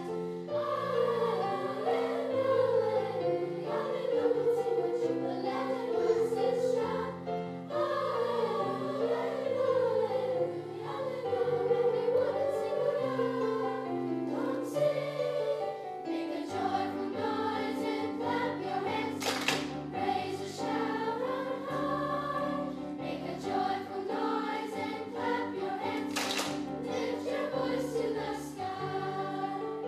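Sixth-grade children's choir singing in unison and parts, with keyboard accompaniment.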